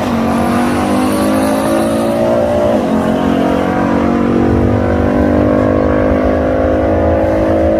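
Two drag-racing muscle cars at full throttle down the strip, engine pitch climbing, then dropping sharply at a gear change about three seconds in and climbing again.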